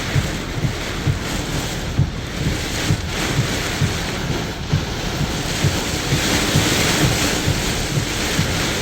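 Strong storm wind blowing hard against the microphone: a continuous rushing hiss with frequent low rumbling buffets, the rush growing stronger about six seconds in.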